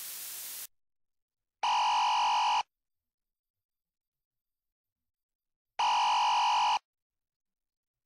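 Two identical steady electronic alert tones, each about a second long and about four seconds apart, with silence between them; a faint hiss fades out in the first second.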